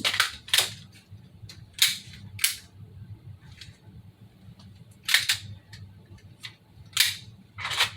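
Sharp plastic clicks and clacks from an unloaded, ungassed airsoft replica gun being handled and dry-fired, about nine irregular clicks, some in quick pairs.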